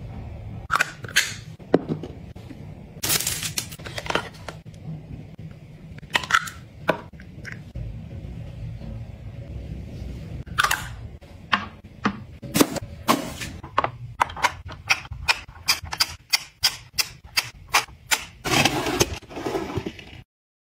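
Close-up handling of skincare bottles and plastic containers: scattered sharp clicks and taps, then a quicker run of evenly spaced clicks in the second half, over a low steady hum.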